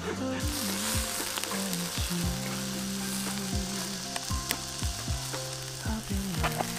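Lamb and vegetable skewers sizzling on a wire grill over charcoal. The steady sizzle comes up about half a second in, with low thumps and tones underneath.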